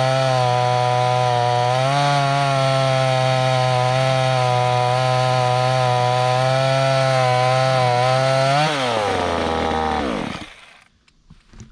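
Neotech 25cc two-stroke chainsaw running at full throttle, cutting through a log of about 11 inches. Near the end the engine pitch drops steeply and it winds down to a stop.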